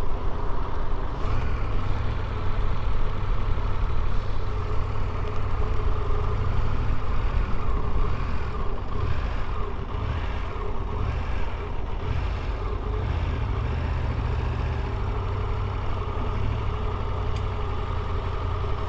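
Motorcycle engine running at a steady cruising speed, a low, even drone with wind and road noise over it.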